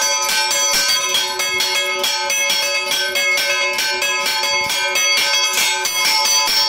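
Two church bells chimed by hand, their clappers pulled on chains, struck in a rapid, even rhythm of several strikes a second, each bell's tone ringing on between strikes.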